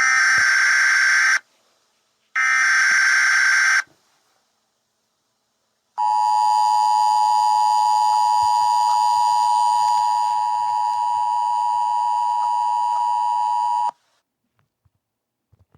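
Emergency Alert System tones: two rasping bursts of SAME header data, each about a second and a half, then the EAS two-tone attention signal held steady for about eight seconds before cutting off. Together they mark the start of an emergency alert broadcast.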